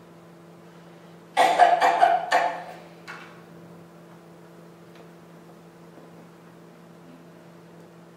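Room tone with a steady low electrical hum, broken about a second and a half in by one loud, rough burst of about four quick pulses lasting just over a second.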